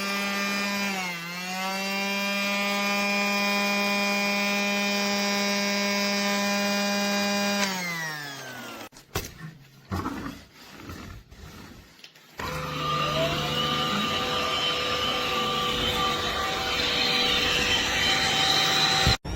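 Casdon Dyson toy cordless vacuum's small battery motor running with a steady hum. It spins up, dips briefly about a second in, holds steady, then winds down at about eight seconds. After a few seconds of handling clicks, it runs again at a lower pitch with a rougher, hissier sound and cuts off suddenly near the end.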